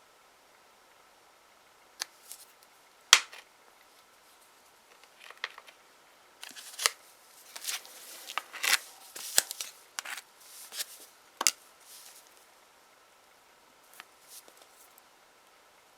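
Nail-stamping tools and polish bottle handled on a table: two sharp clicks, then several seconds of short, quick scraping and tapping sounds, and a few faint ticks near the end.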